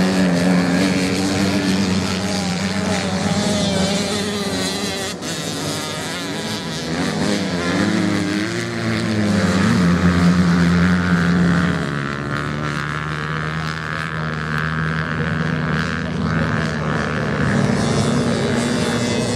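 Several off-road racing motorcycles running flat out on a sand track. Their engine notes overlap and rise and fall in pitch as the bikes accelerate, back off and pass.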